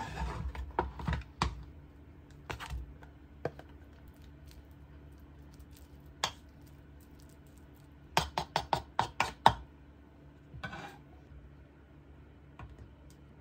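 Kitchen utensils, a metal spoon and tongs, clicking and knocking against a wooden bowl and a plate: scattered knocks, then a quick run of about seven clicks a little past the middle.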